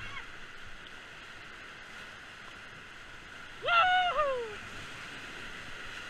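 Whitewater rapids rushing steadily around an inflatable raft. About three and a half seconds in, a rafter gives one shout that rises and then falls in pitch.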